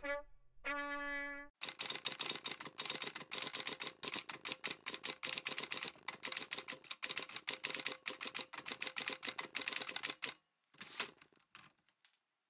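Typewriter sound effect: a fast, irregular run of key clacks for about nine seconds as on-screen text is typed in, ending with a short high ring and a few last clicks. Just before it, a held brass note closes the intro jingle.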